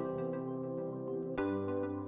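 Background music: calm new-age style with held chords, moving to a new chord about a second and a half in.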